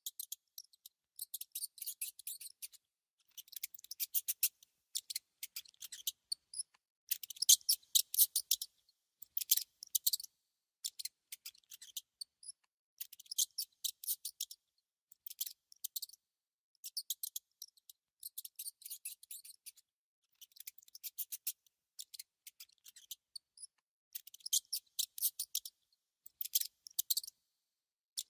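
A mouse gnawing on food: repeated bursts of rapid, crisp, high-pitched clicking, each about a second long, with short silent pauses between.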